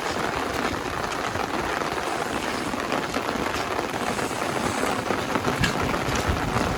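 Rain falling steadily, an even hiss with a few sharper drop hits near the end.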